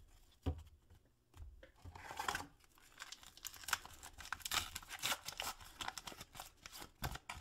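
A baseball card pack wrapper being torn open and crinkled by hand: a run of irregular crackling and tearing that lasts about five seconds, after a soft knock near the start.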